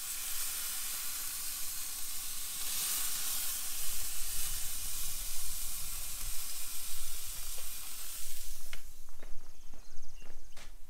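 Tomahawk steak sizzling on a hot charcoal grill grate, a steady hiss. It fades out near the end and gives way to a few sharp clicks and knocks.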